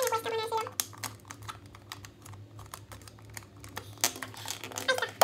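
Irregular run of small plastic clicks and taps as Mr. Potato Head pieces are pushed into and handled on the toy's hollow plastic body.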